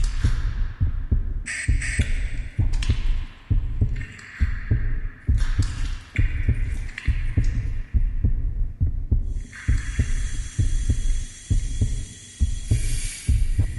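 Eerie background sound effects of a storybook app: a regular low throbbing pulse, with hissing swells coming and going over it and a longer one in the last few seconds.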